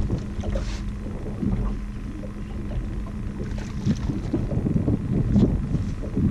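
Outboard motor running steadily at trolling speed, a low even hum, with wind buffeting the microphone.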